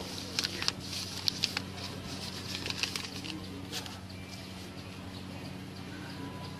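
Brown paper and banana leaf crinkling and rustling as they are folded by hand into a food packet: a run of crisp crackles through the first four seconds, then quieter, over a steady low hum.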